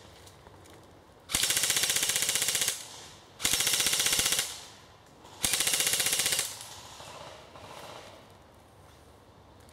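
Airsoft M4 rifle firing three bursts on full auto, each a rapid stream of shots about a second long, with short pauses between them.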